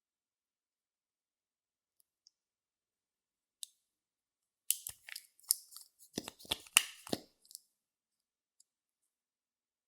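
A run of sharp clicks and crackles from handling slime-making supplies, lasting about three seconds from about five seconds in, after a lone click a little earlier.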